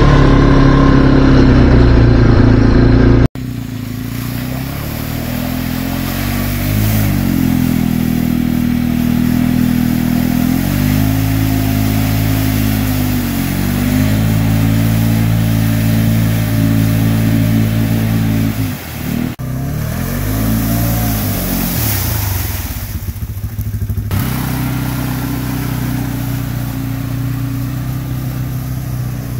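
ATV engine revving up and down again and again as the quad churns through mud, its pitch rising and falling every couple of seconds. The sound changes abruptly a few seconds in, and again twice later on.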